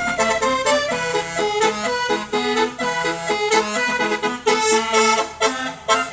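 Bus 'telolet' musical air horn playing a quick tune: short reedy notes that change several times a second, with several tones sounding together.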